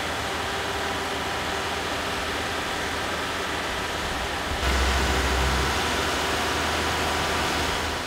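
Steady outdoor street background noise: a hiss over a low hum, typical of city traffic. About four and a half seconds in it steps up louder, with a deeper rumble for about a second.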